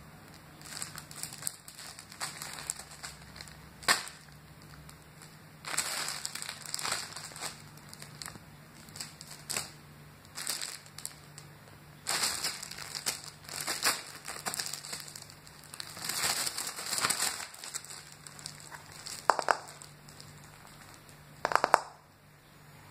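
Clear cellophane plastic sheet crinkling and crackling in irregular bursts as a kitten shifts, rolls and paws on it. The crackles come in clusters, with a few sharp louder ones near the end.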